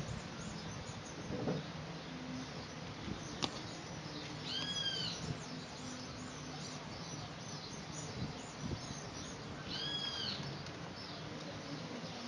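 A bird calls twice, about five seconds apart, each a short arching whistled note. Under it there is a faint steady low hum and a few light clicks.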